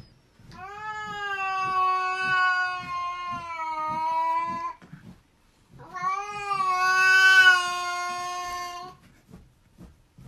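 Cat yowling in two long, drawn-out calls, each held at a nearly steady pitch that sags slightly toward its end. The second call starts about six seconds in.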